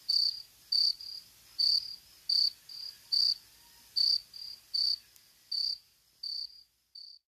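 Cricket chirping as a night-time sound effect: regular high chirps, louder and softer ones alternating, with roughly one loud chirp a second, stopping just before the end.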